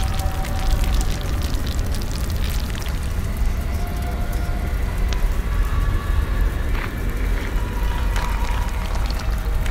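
City soundscape recording: a steady low rumble under a noisy haze, with faint held tones and scattered clicks.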